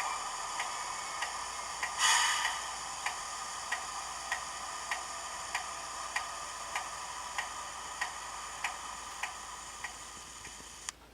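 DCC sound decoder in a model Class 20 locomotive playing the turbocharger whistle recorded from a real Class 20 diesel: a steady high whistle over a hiss, growing slowly quieter and cutting off near the end. A tick comes about every 0.6 s, and there is a short burst of hiss about two seconds in.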